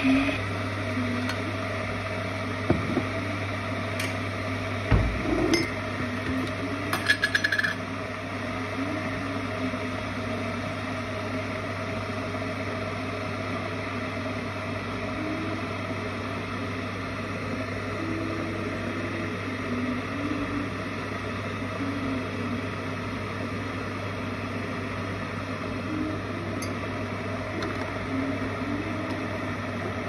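Kasanova electric kettle heating water, a steady hum and rushing hiss. A few sharp clinks of a metal spoon against glass and ceramic, with a quick run of ticks, come in the first eight seconds.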